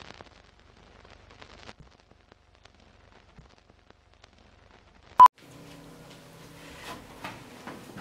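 A single short 1 kHz beep about five seconds in: the '2-pop' sync tone of a film countdown leader. Before it only a few faint ticks; after it a quiet, steady low hum.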